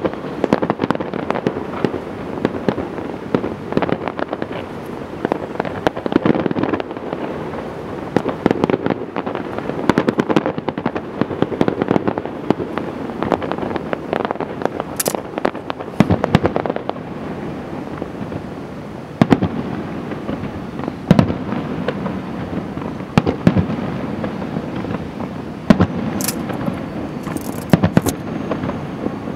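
Aerial firework shells bursting in a continuous barrage: a rapid series of bangs and crackles over a steady rumble, with no pause.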